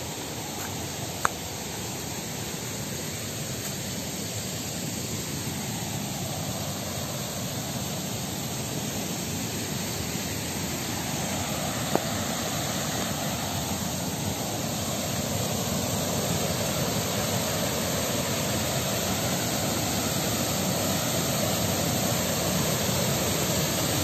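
Waterfall rushing: a steady noise of falling water that grows gradually louder, with two short clicks along the way.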